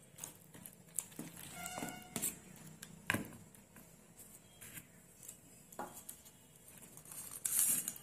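A metal spoon stirring and clicking against a plastic bowl of juice-soaked dried fruit and nuts, with scattered light knocks as bowls are handled. Near the end there is a short scraping rush as morabba pieces are tipped in from a small bowl.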